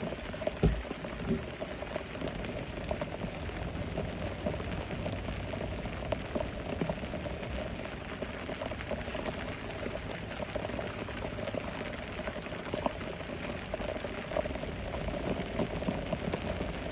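Steady rain falling on the boat and the water, a dense patter of small drop ticks, with a dull knock about a second in.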